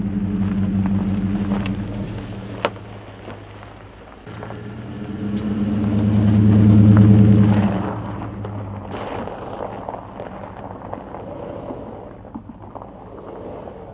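Engine of a lifted Chevrolet Silverado Z71 pickup running at low speed as the truck rolls past on gravel. It fades over the first few seconds, swells to its loudest about seven seconds in as the truck passes close, then fades as it drives away. Scattered small clicks of gravel come from under the tyres.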